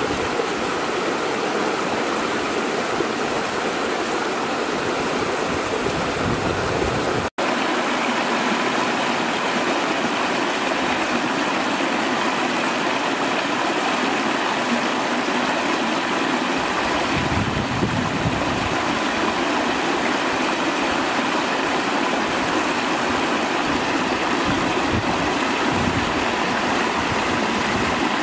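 Shallow rocky stream rushing and splashing over stones in a steady wash of water noise. The sound cuts out for an instant about seven seconds in.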